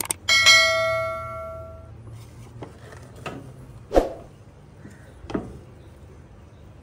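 A bright bell-like chime rings once and fades over about a second and a half, followed by a few scattered clicks and knocks, the loudest about four seconds in.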